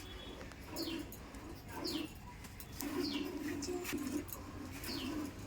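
Milk squirting into a bucket as a cow is milked by hand, the jets coming in an even rhythm about once a second, each with a short falling hiss.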